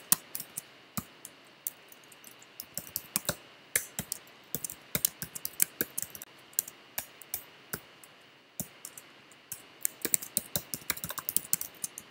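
Typing on a computer keyboard: quick, irregular key clicks in short runs as lines of code are entered.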